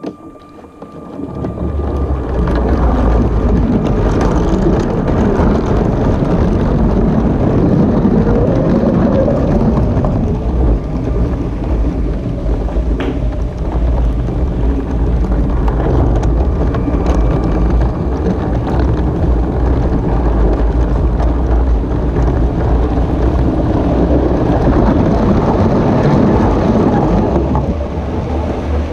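LEGO trains rolling past on plastic LEGO track right beside the camera: a steady rumble and clatter of wheels on the track and switches. It builds over the first couple of seconds and eases off near the end as the trains move away.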